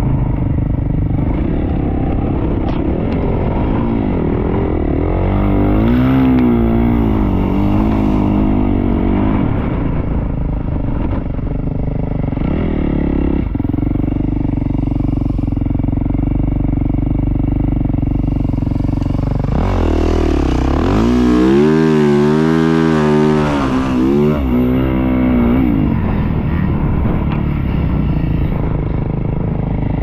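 Dirt bike engine running as it rides over sand, with the revs rising and falling in two long spells of throttle, about five seconds in and again around twenty seconds in, between steadier running.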